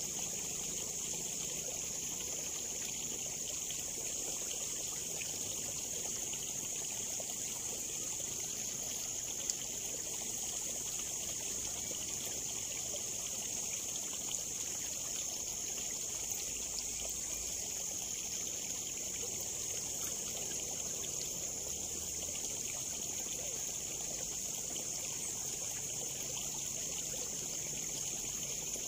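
Water trickling steadily along a small ditch, an even high hiss with no breaks, with one faint click about a third of the way in.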